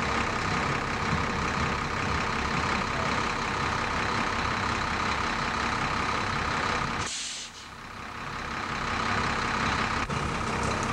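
Fire engine idling steadily close by. About seven seconds in there is a short, high air-brake hiss.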